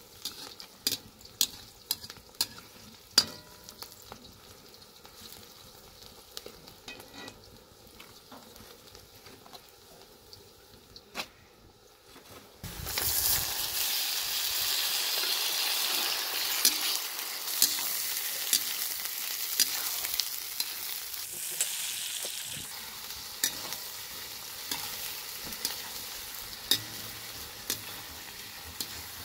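A metal ladle scrapes and knocks against a large iron pot as onions fry. About 13 seconds in, a loud sizzle starts suddenly as sliced tomatoes go into the hot oil, then slowly dies down under continued stirring.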